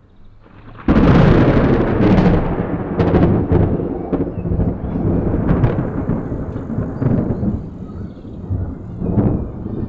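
Thunder: a sudden sharp crack about a second in, then a long rolling rumble with repeated crackles that slowly fades and swells again near the end.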